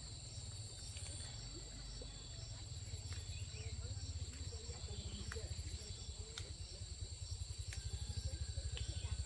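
Insects chirring steadily in two high-pitched, pulsing tones, with a low fluttering rumble underneath that grows louder toward the end.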